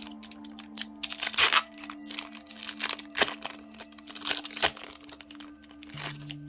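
Crinkling foil booster-pack wrapper and trading cards being handled, a run of irregular sharp crackles, over background music.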